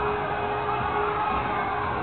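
Film soundtrack music with a crowd shouting beneath it, and one note held through the first second and a half.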